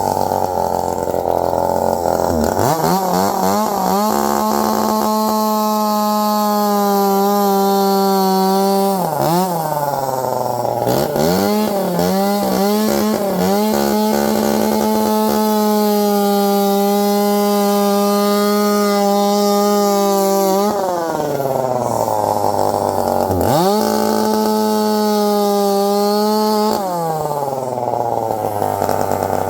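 Two-stroke chainsaw run at full throttle, cutting a tire off an aluminum rim. Its pitch holds high for several seconds at a time and drops briefly toward idle between stretches, about four times, with the last drop near the end.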